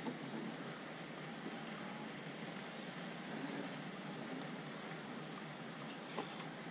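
Faint electric motor and gear whine of an RC rock crawler creeping slowly up a steep rock face, with a faint high tick about once a second.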